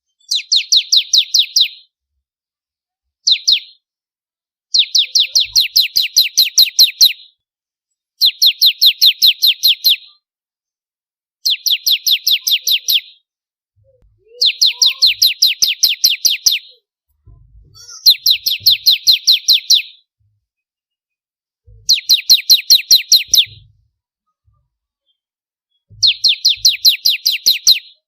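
Ciblek kristal (a prinia) singing loud phrases of fast, evenly repeated high chirps, about seven a second, each phrase about two seconds long with short pauses between, nine phrases in all. A few faint low knocks come in the pauses.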